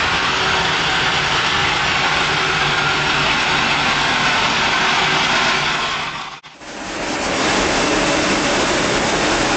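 A street-cleaning vehicle's engine running, with a steady hiss of a high-pressure water jet washing the pavement. About six and a half seconds in the sound cuts out for an instant and resumes as the machine's rotating sweeper brush works the ground.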